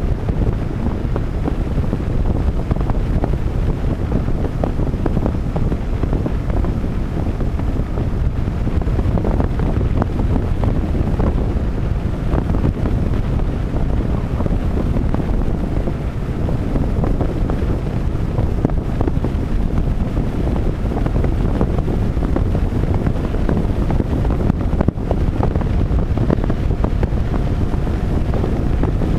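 Heavy wind buffeting the microphone of a camera on a moving motorbike: a steady, low rumbling rush of air with no breaks.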